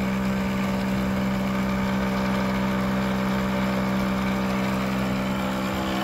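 Old air compressor running with a steady, even hum, pumping air through a homemade smoke machine that vaporizes heated baby oil for a vacuum-leak test.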